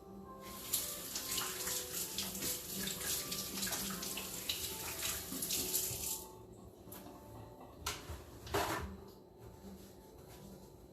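Late July tortilla chips being crushed and broken up by hand: a dense crackling crunch for about five seconds, then one more short crunch a couple of seconds after it stops.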